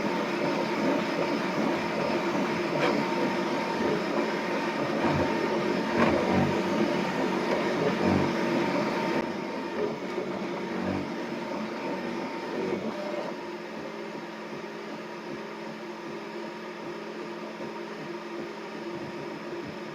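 Bambu Lab P1S 3D printer running: a steady mechanical hum with scattered clicks, dropping to a quieter steady hum about thirteen seconds in.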